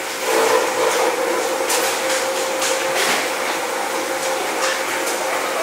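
Knives knocking on wooden cutting boards as fish are cut, several sharp irregular knocks over a steady machine hum and hiss.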